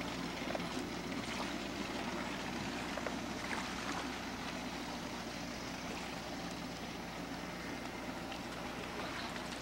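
Motorboat engine running at low speed with a steady hum, under a wash of water noise, as the boat pulls a rider on an inflatable tube.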